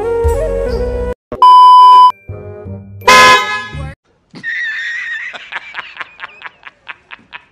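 Flute background music breaks off, then two loud horn-blast sound effects sound, the first a steady held tone lasting under a second. A man then laughs hysterically, starting with a high wheeze and going into rapid 'ha-ha-ha' bursts, several a second: an edited-in laughing meme clip.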